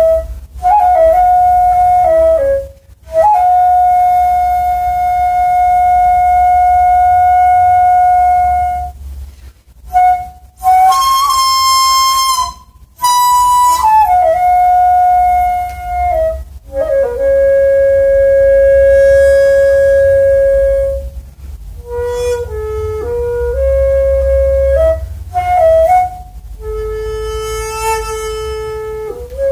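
Daegeum, the Korean large bamboo transverse flute, playing a slow solo melody: long held notes separated by short breaths, with bends and ornaments sliding into the notes. A higher, brighter passage comes about eleven seconds in, and the phrases move lower near the end.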